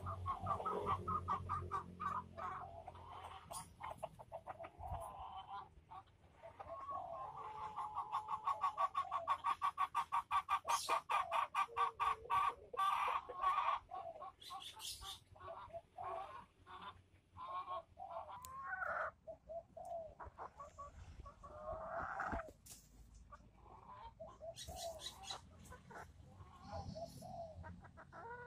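Ayam Cemani chickens clucking. A long run of fast, evenly repeated clucks comes in the first half, followed by scattered single calls.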